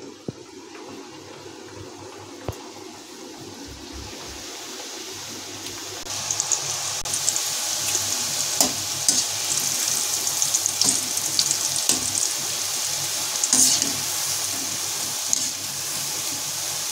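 Strips of maida dough (matra) deep-frying in hot oil in a steel kadhai: a steady sizzle with small crackles and pops. The sizzle gets louder about six seconds in.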